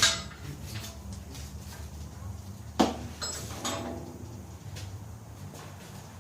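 Metal clanks as loader mounting hardware is handled: a sharp knock at the start and another about three seconds in, followed by brief metallic ringing, over a steady low hum.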